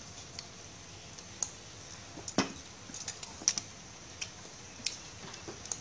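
Shellfish and beef grilling on a wire rack over a charcoal clay stove: a steady high sizzle with scattered sharp pops and clicks. The two loudest clicks, a little after two and three seconds in, come from metal tongs knocking against the grill rack.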